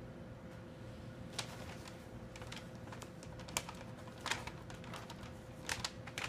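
Brown paper bag crinkling as a hand rummages inside it: irregular sharp crackles, a few louder than the rest, over a faint steady hum.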